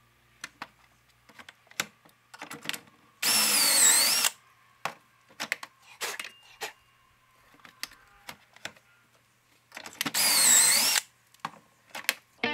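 Cordless drill boring pocket holes through a pocket-hole jig: two bursts of about a second each, the motor's whine dipping as the bit bites. Between them come sharp clicks and knocks of the workpiece being set in and clamped.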